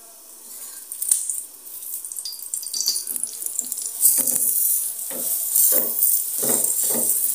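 Oiled stuffed paratha sizzling on a hot tawa, the sizzle getting louder after it is flipped about four seconds in. Near the end the sizzle comes in short pulses about twice a second as the paratha is pressed down and moved with tongs.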